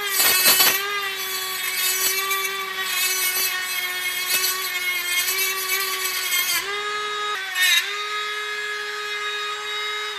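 Cordless Dremel rotary tool with a cut-off wheel whining at speed while grinding the locking teeth off a plastic mount, with a rough grinding sound as the wheel bites at the start and again briefly near the end. Its pitch dips twice under load, and at the very end the whine falls away as the motor spins down.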